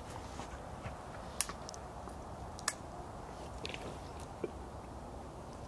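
Quiet outdoor background with a few short, sharp clicks: two clear ones about a second and a half and nearly three seconds in, and fainter ones later.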